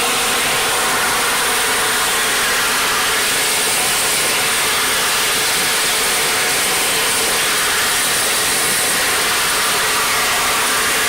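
Compressed-air-powered EXAIR Vac U Gun running in vacuum mode, a steady loud rush of air with a faint whine in it, cutting off suddenly at the end as the air is shut off.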